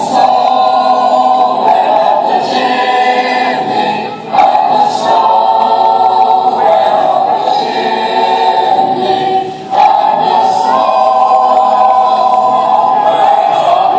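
A choir singing in long held phrases, with short breaks about four and ten seconds in.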